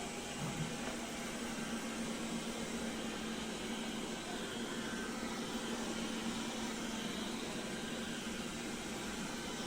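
Steady mechanical whirr of a small fan or motor, with a constant low hum under an even hiss.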